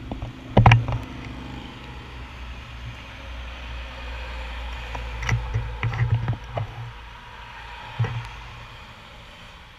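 Road traffic passing through an intersection: a truck and cars driving by, as a low rumble that swells in the middle and again near the end, heard through a handlebar-mounted GoPro's housing. Several sharp knocks close to the microphone, the loudest about half a second in and a cluster a little past the middle.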